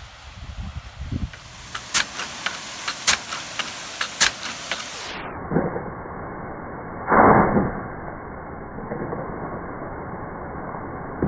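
Nelson SR150 big gun sprinkler running, its drive arm clacking sharply several times over the hiss of the spray. Partway through the sound turns to a duller rushing noise with one loud burst.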